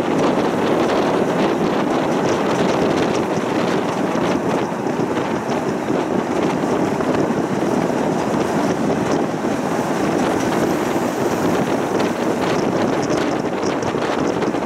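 Tram in motion, a steady running noise, with wind blowing on the microphone.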